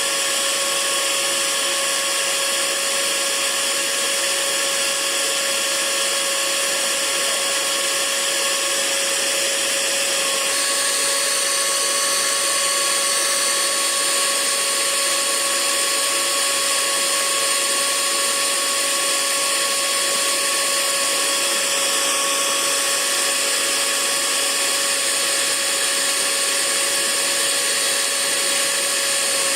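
Hair dryer running continuously: a steady rush of air over a constant motor whine, with a slight change in tone about ten seconds in.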